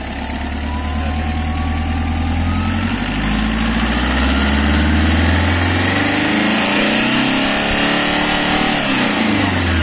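Toyota Hiace van engine revved slowly up from idle, its pitch climbing for several seconds, held at higher revs, then falling back as the throttle is let off near the end.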